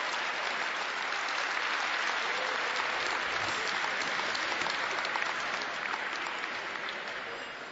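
Audience applauding, steady at first, then thinning and fading away over the last couple of seconds.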